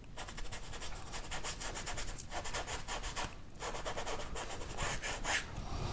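Paintbrush scrubbing acrylic paint across a stretched canvas in quick back-and-forth strokes: scumbling. There are two brief pauses in the stroking.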